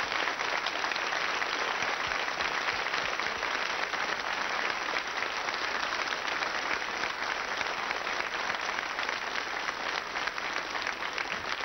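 Studio audience applauding steadily after a song, the clapping easing off slightly toward the end.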